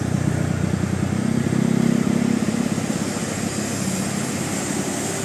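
Engine of a passing road vehicle running with a pulsing low drone, louder about one to two and a half seconds in, then easing off.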